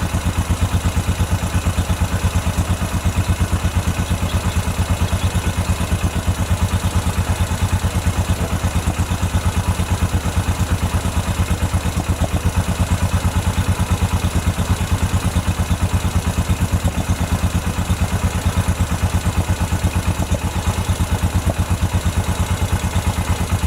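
Freshly rebuilt 2007 Honda ATV single-cylinder four-stroke engine idling steadily, with an even, rapid exhaust pulse.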